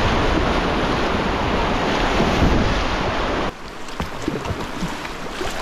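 Loud, steady rush of whitewater rapids with wind noise on the microphone. About three and a half seconds in it drops off abruptly to quieter moving water with a few small splashes.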